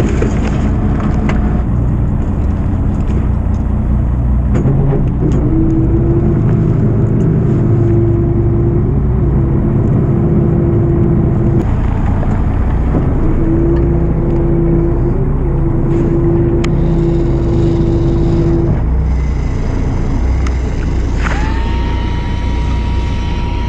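Fishing boat's engine running steadily. A steady mechanical whine comes in for several seconds at a time in the middle, and a higher tone slides down and then holds near the end.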